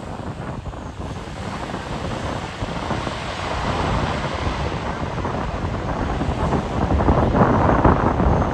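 Airplane on landing approach, its engine noise swelling steadily louder as it comes in low overhead, with wind buffeting the microphone.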